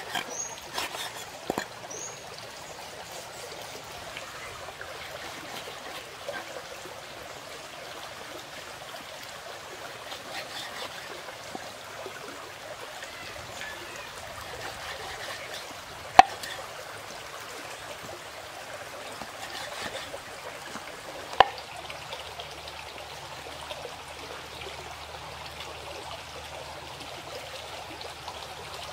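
Shallow stream trickling and rushing over rocks, with a few knocks of a knife against a cutting board as pork is sliced; two sharp knocks, one past the middle and one a few seconds later, are the loudest sounds.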